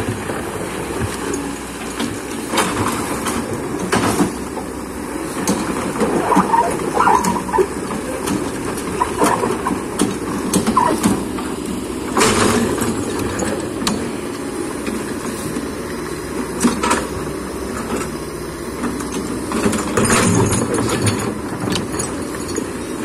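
Excavator engine running steadily, with scattered knocks and clanks and a few brief squeals about a third of the way through.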